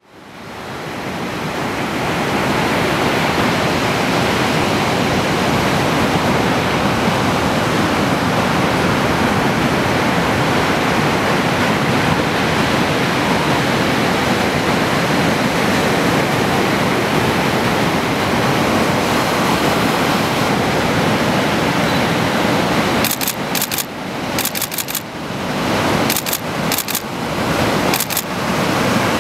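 Steady rush of ocean surf breaking on a sandy beach, fading in over the first couple of seconds. In the last few seconds it dips and breaks up several times, with a few short crackles.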